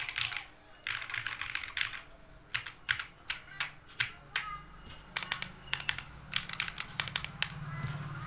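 Typing on an Arisu keyboard: quick runs of keystrokes in the first two seconds, then, after a short pause, slower separate key clicks until near the end.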